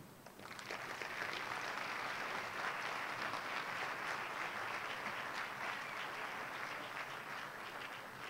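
Audience applauding, a dense patter of many hands clapping that starts about half a second in and eases off slightly near the end.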